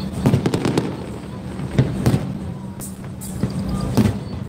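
Aerial firework shells bursting in a display: a rapid string of bangs and crackles, with the loudest bangs about two seconds in and near the end.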